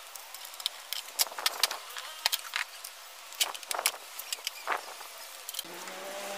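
Metal tools clicking and clinking against a motorcycle engine in an irregular series of sharp ticks, as the engine is opened up for a valve clearance check. A low steady hum comes in near the end.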